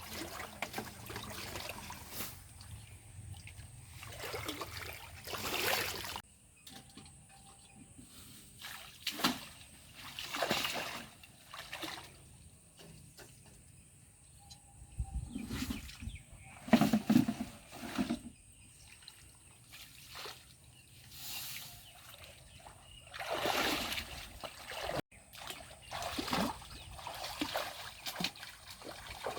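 Water sloshing and splashing in irregular bursts every second or two over a faint trickle, with one louder splash about halfway through.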